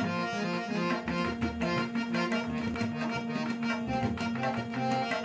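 Instrumental harmonium and tabla music. The harmonium plays a melody of short notes over a steady held low note, and the tabla keeps a regular beat.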